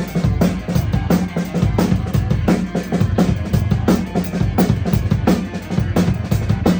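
A live band playing, with a drum kit keeping a fast, steady beat over a heavy bass line.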